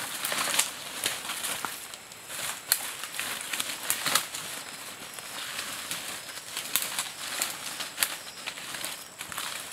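Dry leaves and bamboo stalks rustling as they are handled and pushed aside by hand, with many short sharp clicks and snaps scattered through.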